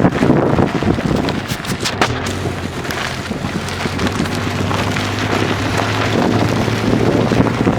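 Wind buffeting the microphone, with a vehicle engine humming steadily underneath from a couple of seconds in.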